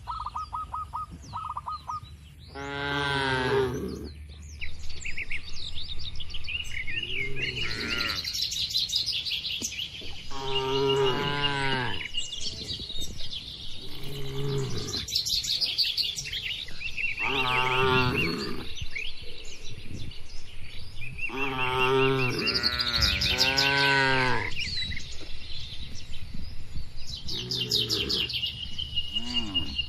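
Cows mooing again and again, about eight long calls whose pitch rises and falls, some overlapping, with small birds chirping continuously in the background.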